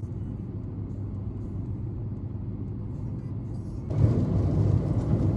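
Car on the move: a steady low road-and-engine rumble that gets louder and fuller about four seconds in.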